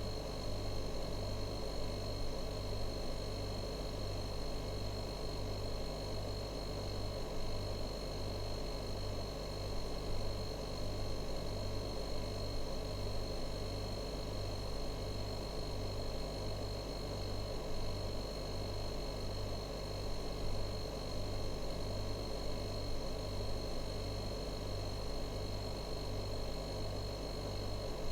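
Fluorescent lights buzzing steadily: a low electrical hum that throbs evenly about one and a half times a second, with a thin high whine held over it.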